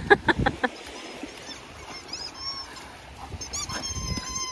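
A golden retriever puppy running through ankle-deep seawater, his paws splashing in a quick rhythm of about six strikes a second for the first moment. A few thin, high-pitched calls follow, with a longer held one near the end.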